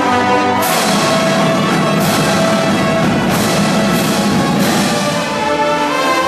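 A marching drumline and brass band play together: snare and bass drums under sustained brass chords from trumpets and sousaphones, with several cymbal crashes.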